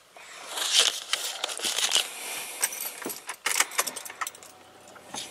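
Car keys jangling and clicking as the key is fitted into the ignition and turned to on. A faint low hum starts near the end.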